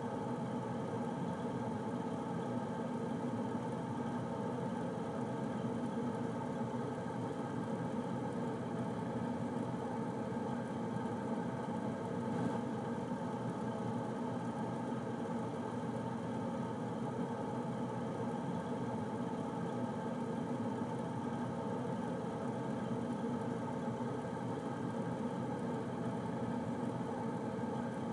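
Air conditioner running: a steady whir with a low hum and several steady tones.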